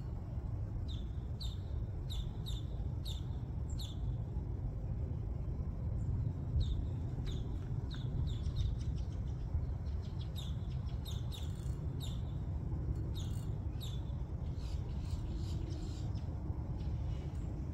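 A bird calling in repeated runs of short, sharp chirps, several a second, over a steady low rumble.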